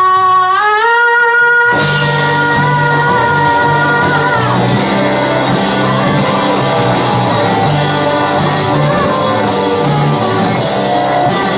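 Live rock band in a large hall, with electric guitars, drums and singing. A held note steps up in pitch, then about two seconds in the full band comes in with a pulsing bass line.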